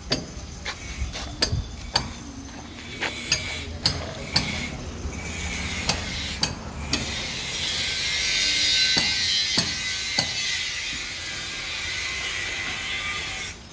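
Irregular sharp clanks and taps of steel fabrication work. A steady hiss starts about seven seconds in and cuts off abruptly near the end.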